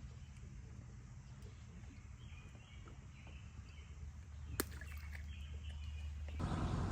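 Birds calling in short repeated chirps over a steady low rumble, with one sharp click about four and a half seconds in; the rumble and a wider hiss grow louder near the end.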